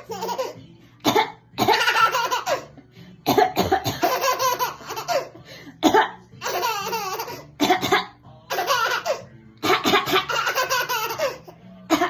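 A baby laughing in repeated fits, each set off by a woman's short cough, about five times over.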